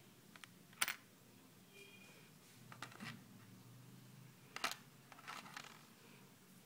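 Light clicks and taps of small steel fishing hooks being handled and set down on a table: a sharp click about a second in, then a few softer ones.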